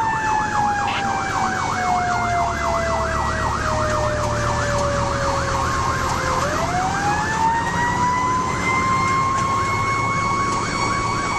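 Fire engine sirens heard from inside the cab: an electronic yelp warbling about four times a second over a slower wail that falls in pitch for about six seconds, then climbs back up. The truck's engine runs underneath.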